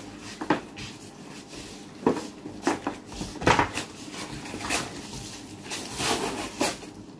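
Shop goods and snack packets being set down and handled on a counter: a string of irregular knocks and plastic rustles.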